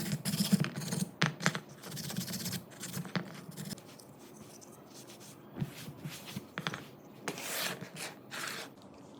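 Hand work on rifle parts: scraping and scratching with scattered small clicks and knocks. It is busiest in the first few seconds, then thins to occasional clicks and one short scrape near the end.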